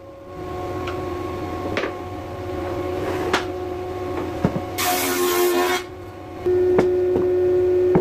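A steady machine hum with a few light wooden knocks as the timber frame pieces are handled. A short hiss comes about five seconds in, and a second later the hum grows louder.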